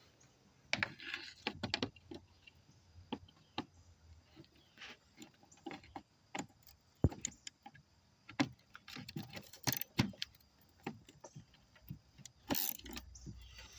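Scattered metal clicks and clinks of a socket on an extension bar working the fan shroud bolts, irregular and fairly faint.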